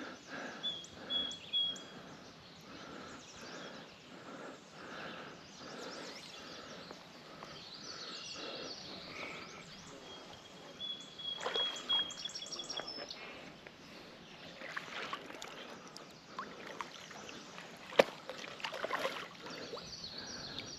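Creek water with irregular splashing from a hooked smallmouth bass being fought, and a bird chirping a few times. A single sharp click about eighteen seconds in is the loudest sound.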